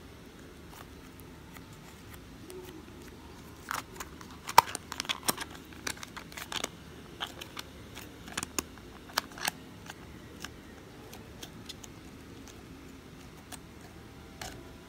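Scattered sharp clicks and crackles from hands handling glitter slime in a clear plastic container, thickest in the middle stretch, over faint room hiss.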